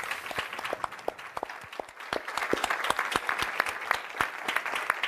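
A small group applauding: many irregular hand claps.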